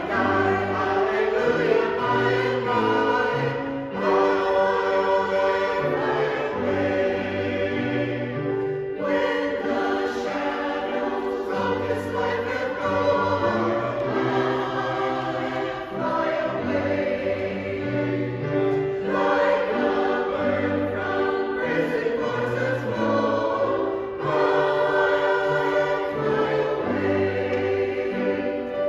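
Small mixed choir of men's and women's voices singing in harmony, in long held phrases with short breaks between them every few seconds.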